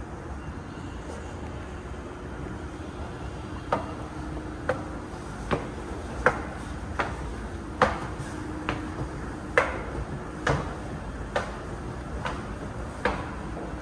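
Footsteps of hard-soled shoes clicking on a hard floor at walking pace, a little over one step a second, starting a few seconds in, over a steady low background hum.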